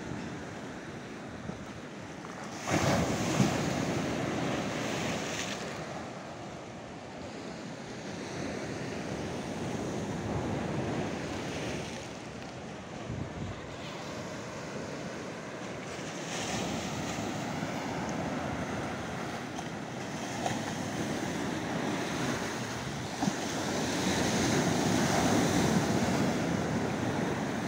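Sea waves washing in and draining back over a rocky shore, with a steady rush that swells louder a few times: sharply about three seconds in, again midway, and near the end.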